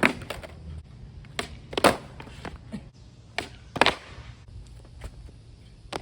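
Skateboard clacking on the ground during repeated stationary hardflip back 180 attempts: sharp wooden clacks of the tail popping and the board slapping down, loosely in pairs about half a second apart, about six in all.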